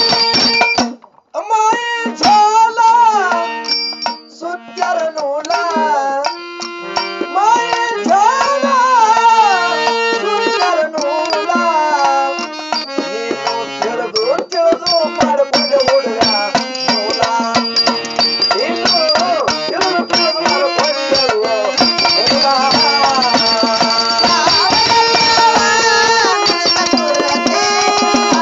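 Men singing a Kannada bhajan (devotional song) through microphones and a PA, with a lead voice over held accompanying tones and percussion. The music cuts out briefly about a second in.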